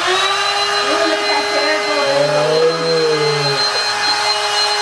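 Handheld electric air pump (inflator) running steadily with a high whine, its motor holding one pitch.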